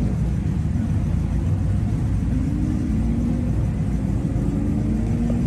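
Race car engines running on the track: a steady low rumble, with an engine note that shifts in pitch from about two seconds in.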